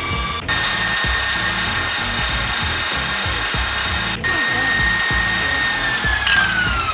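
Stand mixer motor whining steadily as its wire whisk beats eggs and sugar at high speed. Near the end the whine glides down in pitch as the motor slows.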